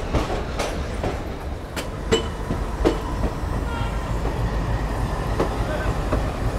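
Passenger train coach rolling slowly as the train pulls out of a station: wheels knocking over rail joints and points at irregular intervals over a steady low rumble.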